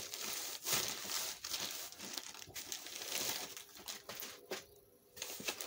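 Clear plastic bag crinkling as a rolled diamond-painting canvas is handled in it, dying down about four and a half seconds in, then one short rustle near the end.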